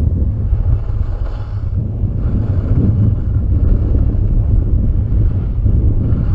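Wind buffeting the skier's head-mounted camera microphone at speed, a steady low rumble, with the hiss of skis sliding and carving on packed snow swelling every second or two as the skier turns.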